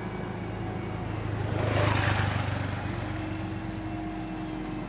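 A motor vehicle passing on the road: its noise swells to a peak about two seconds in and fades, over a steady low engine hum.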